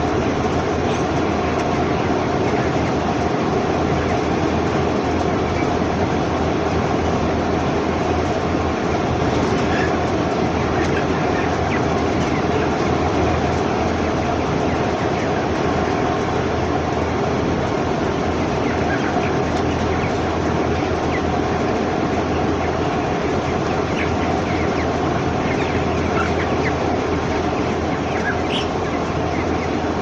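A large flock of 22-day-old broiler chickens chattering without pause, with scattered high peeps, over a steady mechanical drone from the shed.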